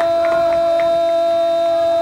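A football commentator's long, drawn-out "goool" cry for a goal, held loud on one steady pitch.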